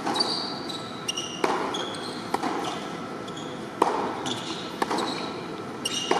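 Tennis rally on an indoor hard court: sharp racket strokes and ball bounces about every second or so, with short high squeaks of shoes on the court in between.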